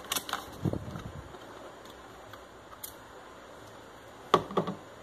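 Handling of a glass perfume bottle and its cardboard box: a few soft clicks in the first second, then a sharp click followed by two smaller ones about four seconds in.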